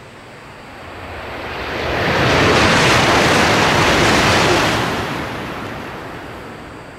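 Shinkansen bullet train passing through a station at high speed without stopping. Its rush of air and running noise swells over about two seconds, holds loud for about three, then fades away.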